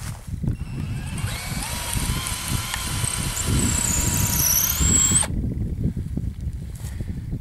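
Power drill with a 5mm bit drilling a pilot hole into a wooden fence post, running with a steady whine for about five seconds and stopping abruptly.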